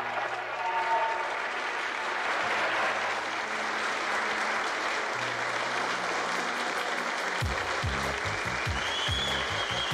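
Large crowd applauding steadily in a hall. Background music with a regular beat joins in about seven seconds in.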